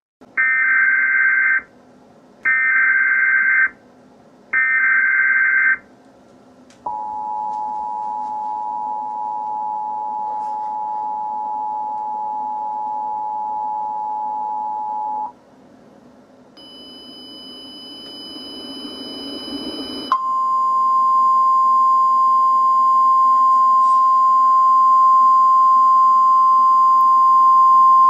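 Emergency Alert System tones: three short bursts of harsh SAME header data tones, then the two-tone EAS attention signal held steady for about eight seconds. After a few seconds of rising noise, a single steady NOAA Weather Radio warning alarm tone runs on.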